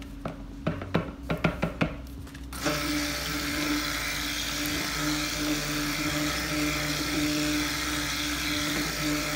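Handheld stick blender running steadily in a plastic pitcher of melted soap-making oils and butters, a constant electric whine that starts about two and a half seconds in. Before it starts, a run of light clicks and knocks.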